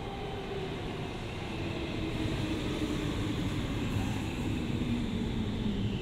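A vehicle's motor whine falling steadily in pitch over a low rumble that grows louder, as of an electric vehicle slowing down as it comes closer.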